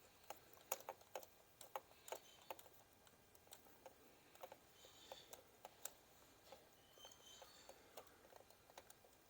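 Near silence broken by scattered faint, irregular clicks and taps of small tools and parts being handled.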